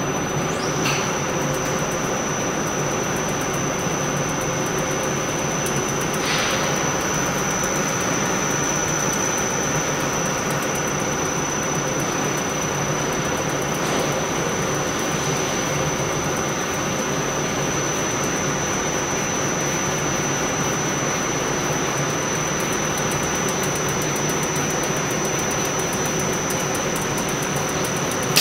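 Automatic spiral-wire fan grill welding machine running: a steady mechanical hum with a constant high-pitched whine, and a few faint short noises on top.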